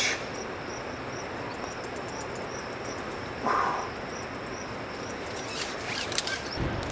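Outdoor ambience with an insect, cricket-like, chirping in an even high-pitched rhythm over a steady hiss. A short louder call or exhale comes about halfway, a few sharp clicks come near the end, and then wind starts rumbling on the microphone.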